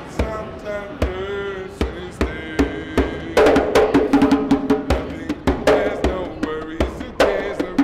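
A man singing wordless vocal lines while beating a hand drum in a quick, uneven rhythm of sharp strikes.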